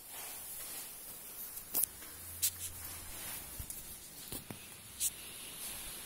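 Quiet room noise with about five short, sharp clicks and taps scattered through it.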